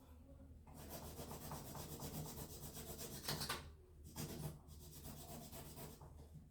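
A fingernail being filed or buffed by hand, the file rasping across the nail in quick strokes in two spells with a short pause between.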